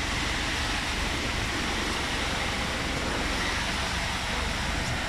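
City bus driving, heard from inside the cabin: a steady engine and road rumble.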